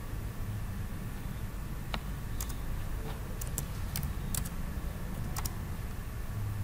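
Computer keyboard being typed on: about nine separate key clicks spread over three or four seconds, starting about two seconds in, over a steady low hum.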